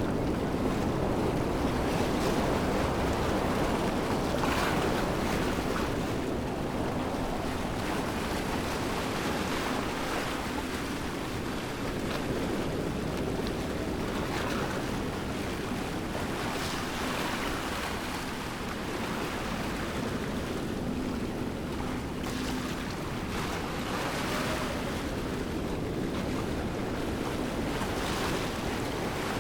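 Waterfall rushing steadily, an even wash of falling water that swells slightly now and then.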